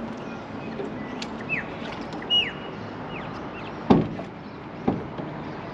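Birds calling with a few short falling whistles, followed by a sharp knock about four seconds in and a softer knock a second later.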